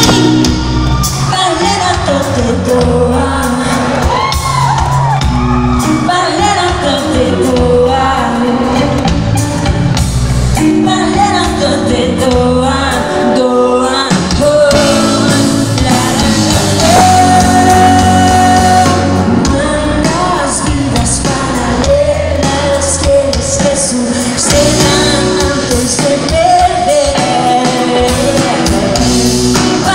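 Live pop band playing, electric guitars and keyboard under a woman's lead singing, heard loud from within the audience.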